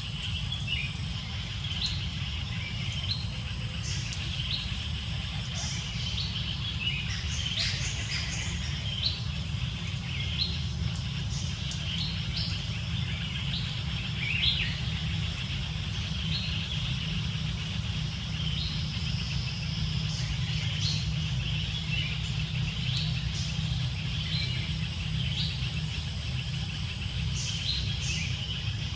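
Outdoor ambience: a steady low rumble with many short, high bird chirps scattered throughout.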